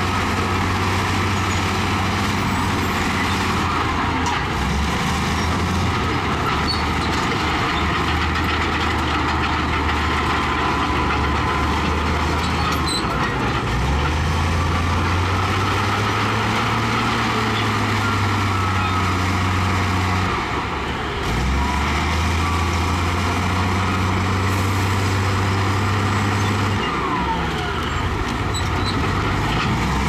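Heavy diesel earthmoving machinery at work: a deep engine note that shifts up and down in pitch several times as the load changes, under a constant rough noise.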